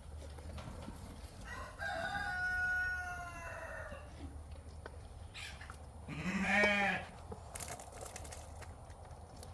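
A rooster crows once, a drawn-out call about two seconds in. A few seconds later comes a short wavering bleat from a sheep or goat.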